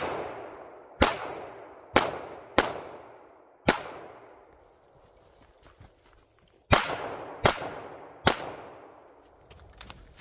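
Pistol shots fired one at a time at uneven intervals, each with a long echoing tail. There are about seven in two groups, with a pause of about three seconds between them.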